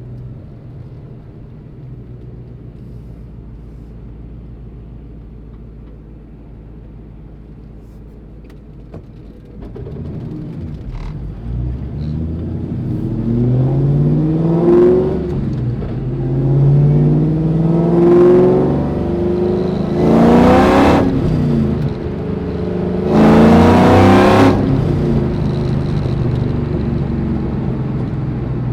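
2003 Ford SVT Cobra's supercharged 4.6-litre V8 heard through its aftermarket exhaust. It idles steadily for about ten seconds, then is revved four times, each rev climbing and falling back. The last two revs are the loudest.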